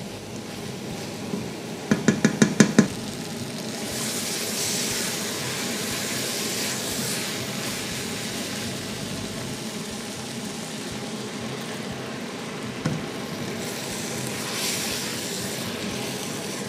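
Vegetables and tomato paste sizzling and frying in a stainless steel pot during a red-wine deglaze: the wine has cooked down and the pot is frying again. About two seconds in there is a quick run of about seven knocks from the wooden spoon on the pot, and one more knock later on.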